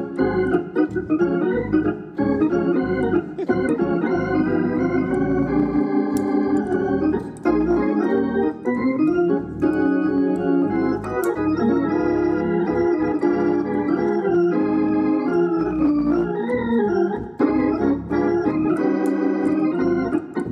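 Hammond organ played in gospel style: sustained chords with a bouncing rhythm over pulsing bass notes, hands and pedals keeping time together.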